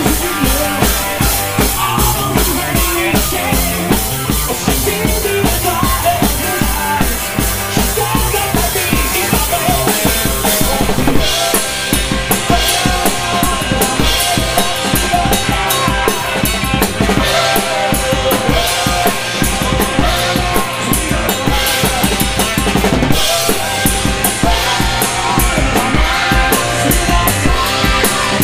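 Live band music: a fast drum-kit beat of bass drum, snare and cymbals under electric guitar. The beat changes about eleven seconds in, the steady cymbal wash dropping to a sparser pattern.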